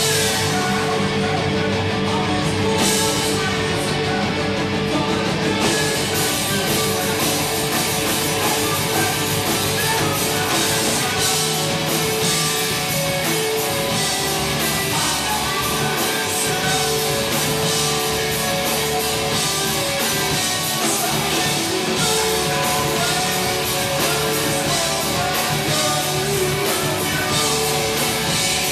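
A punk rock band playing live: electric guitars, bass and drum kit, loud and without a break.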